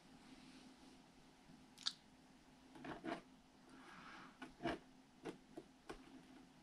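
Faint scattered clicks and crackles as a plastic welder's hot tip presses and slides melted plastic through a wire mesh screen on a plastic RC truck body.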